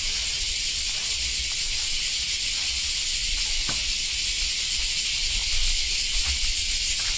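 Steady hiss with a low rumble beneath it and a few faint clicks.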